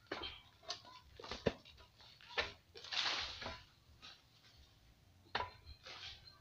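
Hoe blade striking and breaking into a hard earthen termite mound: a series of sharp thuds, roughly one a second, with a longer rushing scrape of loosened earth about three seconds in.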